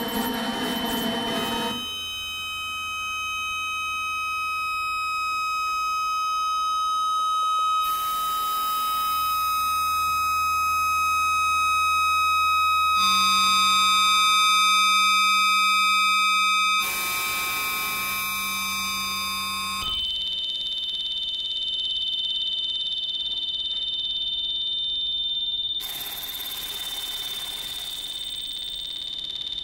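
Experimental electronic live-set music: held synthesizer drones and piercing, alarm-like high steady tones, with no beat. The sound changes abruptly every few seconds, and washes of noise come and go between the sections.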